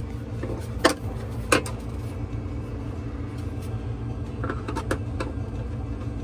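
Wires and terminals being handled at a boat's electrical bus bar: two sharp clicks about a second in, then a few lighter ticks later on, over a steady low rumble.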